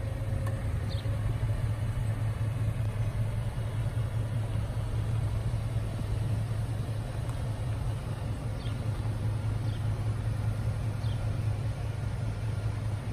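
Ford Super Duty rescue truck's engine running with a steady low rumble as the truck rolls slowly forward; no siren sounds.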